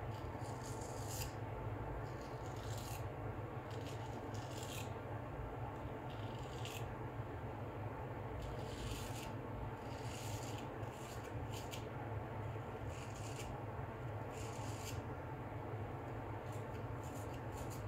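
Full-hollow straight razor (Filarmonica Tridur 15/16) shaving lathered neck stubble: short, crisp scraping strokes with irregular pauses between them, over a faint steady low hum.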